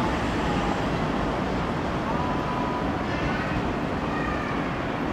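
Steady rumble of passing rail and road traffic, with faint wavering whines that come and go.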